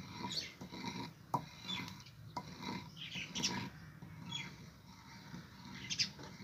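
Wooden pestle grinding and pounding a wet green chutney paste in a heavy stone mortar: irregular knocks of wood on stone, with scraping and short squeaks in between.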